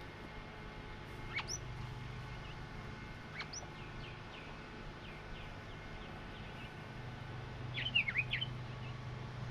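Birds calling: two sharp calls sweeping steeply up in pitch, about two seconds apart, with fainter short calls between them, then a quick burst of chirps near the end over a low steady hum.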